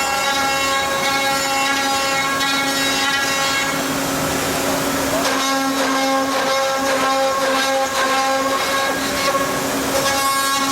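Woodmaster WM-4CNC four-spindle CNC mortising machine running, its spindle motors giving a steady whine over the rasp of the cutters working wood. The cutting noise grows rougher about halfway through.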